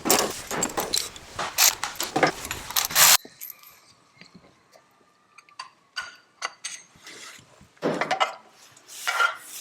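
Small metal engine parts clinking and jangling as they are handled, a dense run of sharp clicks for about three seconds. Then it cuts to quieter, scattered clicks.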